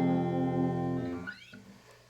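Acoustic guitar's last strummed chord ringing out and fading, then damped about a second and a half in with a short rising squeak of fingers on the strings.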